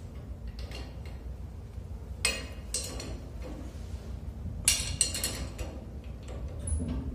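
Metal tools and fittings clinking and knocking during hands-on work at a deck crane's electric motor: a few scattered clinks, loudest about two seconds in and again around five seconds, over a steady low hum.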